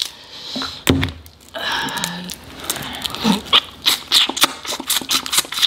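Crab leg shell being snapped and picked apart, then crab meat being chewed close to the microphone, with a quick run of clicks and smacks in the second half.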